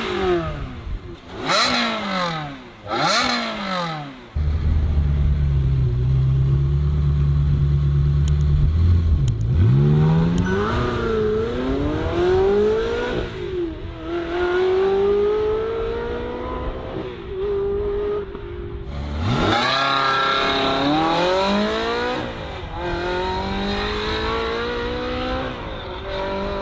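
Ferrari 360's V8 engine: three quick rev blips, then a steady low drone for about five seconds, then several pulls with the pitch rising as it accelerates.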